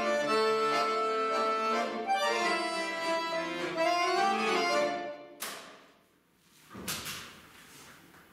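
Piano accordion playing full chords over a moving bass line, the music stopping a little after five seconds in with a sharp click. Near seven seconds there is a short rustling knock as the player gets up from the chair.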